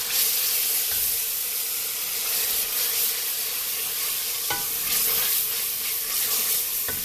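Onions, green chillies and garlic-ginger paste sizzling in hot oil in a metal pot while a wooden spoon stirs them. There is a light knock of the spoon against the pot about four and a half seconds in and another near the end.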